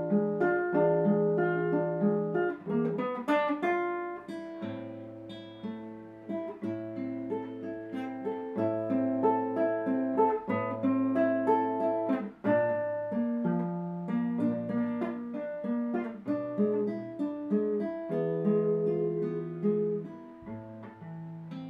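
Solo classical guitar played fingerstyle: a melody of plucked notes over held low bass notes.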